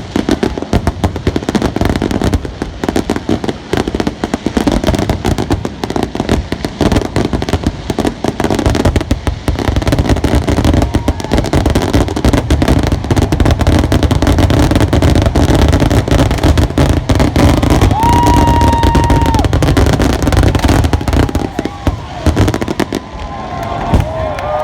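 Dense, continuous barrage of fireworks and firecrackers going off, many bangs and crackles overlapping with no break. A brief steady high whistle lasting about a second and a half sounds past the middle.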